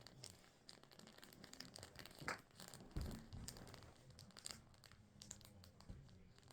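Near silence with faint rustling and crinkling and scattered soft clicks, with two slightly louder knocks about two and three seconds in.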